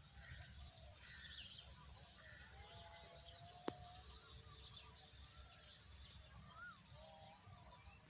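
Faint birdsong: several small birds chirping and whistling, with short level whistled notes around three seconds in and a rising-and-falling whistle near seven seconds, over a low steady rumble. A single sharp click sounds just before four seconds in.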